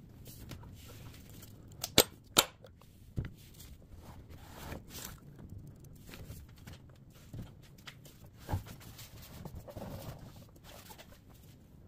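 Latches on the end cap of a 120mm tank-round shipping tube snapping open with two sharp clicks half a second apart, then a smaller click. Softer knocks and scraping follow as the cap and tube are handled.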